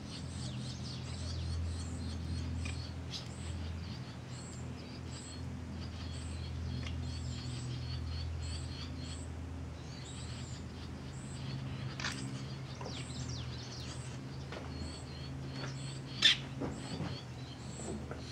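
Wild birds calling in the background, one repeating a high, thin note about every two-thirds of a second among other chirps, over a low steady hum. A single sharp click sounds near the end.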